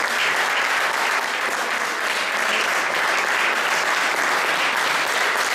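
Audience applauding, steady clapping of many hands.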